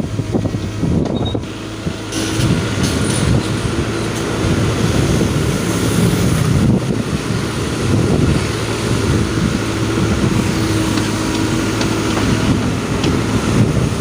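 Heavy diesel machinery running steadily, an excavator and dump truck at work, with a held engine tone in the middle.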